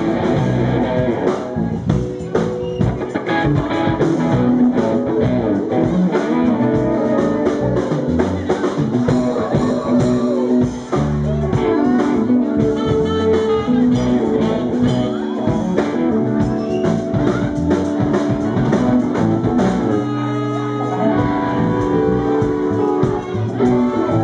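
Live rock band playing an instrumental passage: an electric guitar lead over drum kit and bass, with a tenor saxophone playing along.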